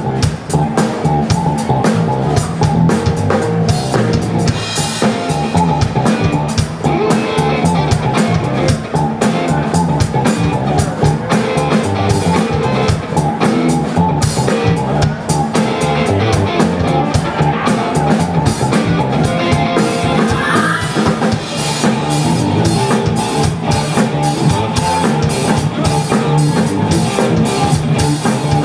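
A live rock band plays through the stage PA: a drum kit with bass drum and snare driving a steady beat under amplified electric guitars.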